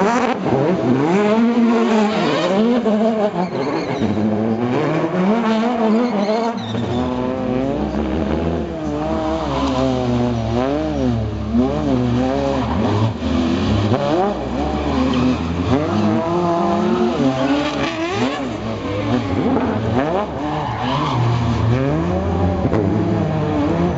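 Super GT GT500 race car engines revving hard and falling back over and over, the pitch sweeping up and down about once a second, with tyres squealing as the cars slide through donuts.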